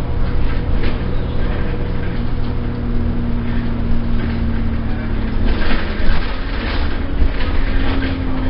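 Alexander Dennis Enviro200 single-deck bus heard from inside the saloon while under way: a steady low engine and road rumble. Over it runs a whine that steps up in pitch about five and a half seconds in and then slowly falls, with short rattles in the second half.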